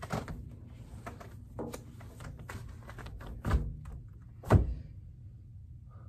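Knocks and thuds from a window screen and window sash being handled: a knock at the start, a few lighter clicks, then two heavier thuds about three and a half and four and a half seconds in, the second the loudest.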